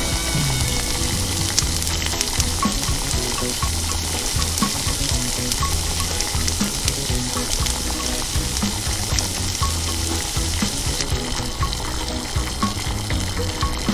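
Continuous sizzling hiss of sauced meat grilling over a charcoal fire, under background music with a steady beat and low bass notes.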